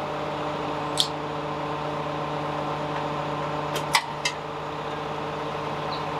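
A steady mechanical hum with a low, even tone, broken by short sharp clinks of metal parts being handled: one about a second in and three in quick succession around four seconds in.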